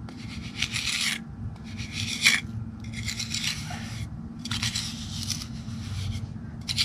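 Trowel scraping wet cement patch mix across concrete as it is spread and smoothed into a spalled spot: about five rasping strokes, each about a second long, with short pauses between.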